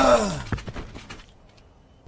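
A man's cry sliding down in pitch as he is hit by a car, followed by a few quick knocks that die away about a second and a half in.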